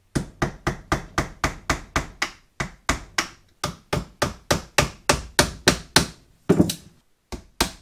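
A hammer tapping a chisel into the lid seam of a LiFePO4 battery's case to pry the lid off. The strikes are rapid, about four a second, with a few short pauses.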